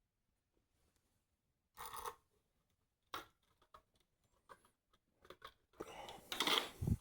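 Hands handling parts and hardware: a few short scrapes and small clicks, then a longer, louder scraping rustle that ends in a low thump near the end.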